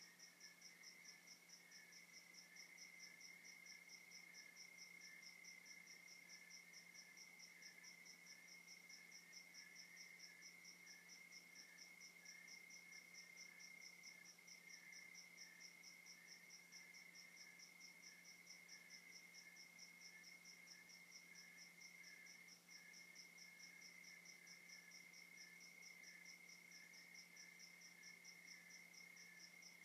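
Faint chorus of crickets: one chirping in a fast, even pulse over a steady high trill, with a low steady hum beneath.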